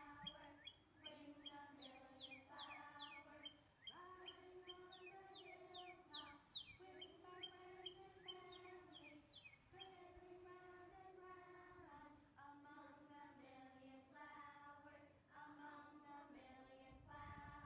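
Children singing a slow melody, quietly, in long held notes that move from pitch to pitch. Over the singing, birds chirp in runs of quick falling whistles.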